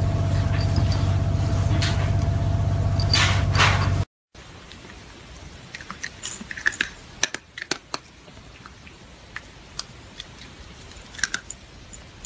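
A steady low hum, then after a brief cut, scattered small clicks and rattles of dry cat kibble as a hand picks through it in a ceramic bowl.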